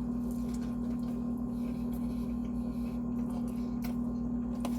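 Steady electrical hum with a low, even pulsing underneath, and a couple of faint clicks near the end.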